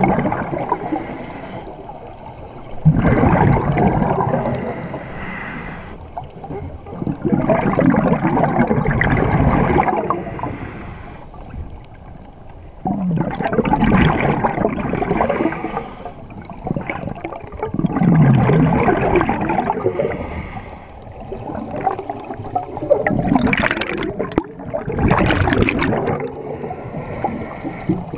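Scuba diver breathing underwater through a regulator: a gurgling rush of exhaled bubbles about every five seconds, five times, with quieter inhalations between.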